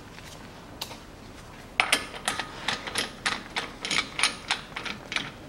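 Ratchet wrench clicking in short strokes, about three clicks a second, starting about two seconds in, as a 27 mm socket turns out the front hub bolt.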